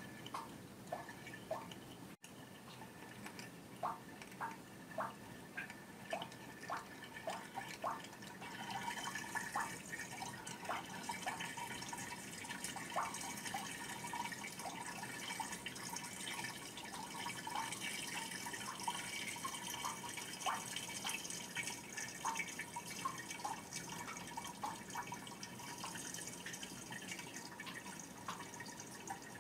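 A thin stream of water trickling and splashing into a shallow pool, with clear plinking drops. About eight seconds in, the splashing grows fuller into a steadier hiss, and the drops carry on over it.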